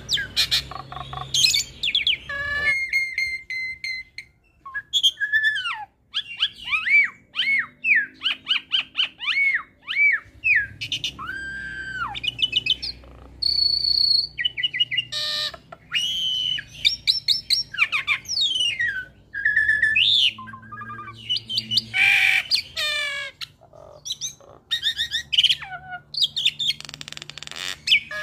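Jalak Suren × Jalak Nias hybrid myna singing a long, varied song. It mixes whistled notes, rising and falling slurs and quick trills, with short pauses and a few rough, rasping bursts, the loudest about two-thirds of the way through.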